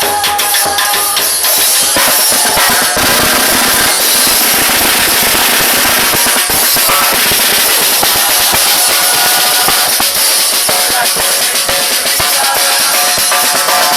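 Murga percussion section of bass drum, snare drum and cymbals playing a steady, driving carnival beat.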